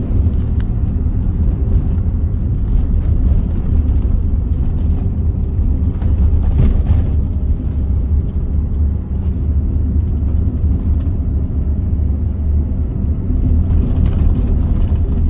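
Steady low rumble of a car in motion, heard from inside the cabin, with a faint steady hum from the engine.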